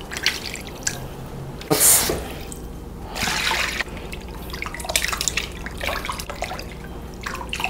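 Water sloshing and dripping as hands squeeze and rub pieces of raw meat in a glass bowl of salted water, with a louder splash about two seconds in.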